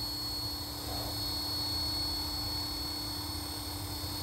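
Align T-Rex 450 LP Dominator electric RC helicopter hovering: a steady hum of the spinning rotor blades with a constant high whine from the brushless motor and gears.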